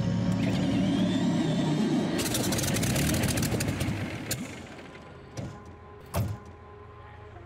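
A Spitfire's Rolls-Royce Merlin V12 turning over and catching on start-up: steady engine sound, then a rapid crackle of firing about two seconds in. After about four seconds the sound drops much quieter, with two short knocks.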